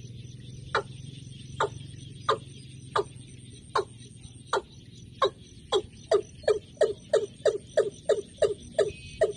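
A bird calling a series of short, sharp notes, each dropping quickly in pitch. They come under a second apart at first, then speed up to about three a second. A steady high insect buzz runs underneath.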